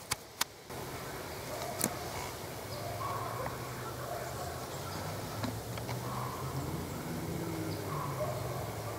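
Two sharp clicks right at the start, then woodland ambience: a steady low hum with a bird calling briefly every couple of seconds.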